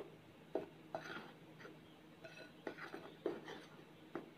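Spoon stirring a dry flour mix in a glass bowl: faint, irregular scrapes and light clinks of the spoon against the glass, about a dozen in all.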